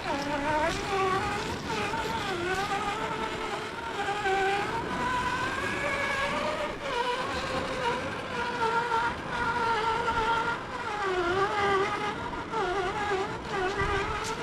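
Electric motor of an RC crawler truck whining as it drives, its pitch rising and falling with the throttle.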